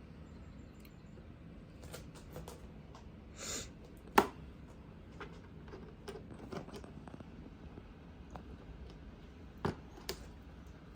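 Scattered plastic clicks and taps from prying at a refrigerator dispenser's plastic cover, with a short scrape and then a sharp snap about four seconds in and two more clicks near the end.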